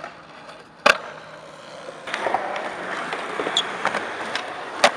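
Skateboard on concrete: a sharp clack of the board hitting about a second in, then polyurethane wheels rolling with small clicks from about two seconds on, and another sharp clack near the end.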